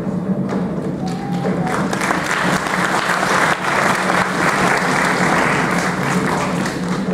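Audience applauding, the clapping swelling about two seconds in and thinning out near the end.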